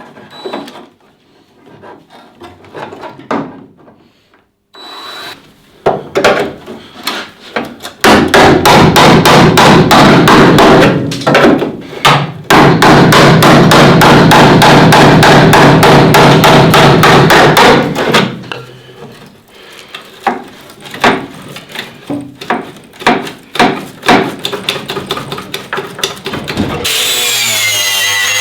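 Hammer blows on the car body's sheet metal, knocking out what is left of the old battery tray after its spot welds were drilled. Scattered knocks give way to about ten seconds of rapid, loud, evenly spaced strikes, then scattered knocks again. Music comes in near the end.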